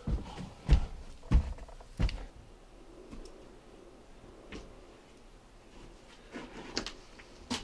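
Three dull footsteps about two-thirds of a second apart, then a few seconds of quiet, then a few lighter steps near the end.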